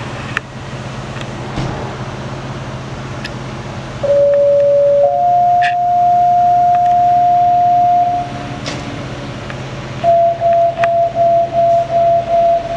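Fire dispatch two-tone pager tone-out over the radio: a lower tone for about a second steps up to a higher tone held about three and a half seconds, followed near the end by a run of rapid short beeps of one pitch. A steady low engine hum runs underneath.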